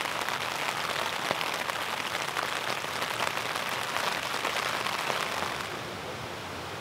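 Rain falling, a dense run of small drop ticks over a steady hiss. About five and a half seconds in, it drops to a quieter, smoother hiss.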